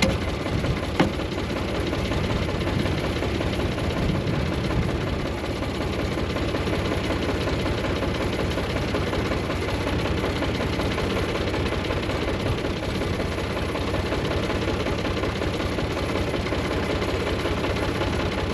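Tractor engine running steadily, with a couple of sharp clicks in the first second.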